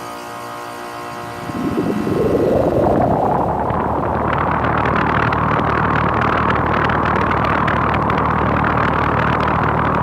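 Central air conditioner's outdoor condenser unit starting up. A steady hum comes first; about a second and a half in, the condenser fan spins up into a loud, steady rush of air over a low hum.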